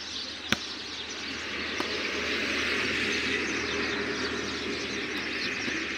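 A volleyball is struck once with a sharp smack about half a second in. Then a broad, steady noise builds over the next couple of seconds and eases slightly toward the end.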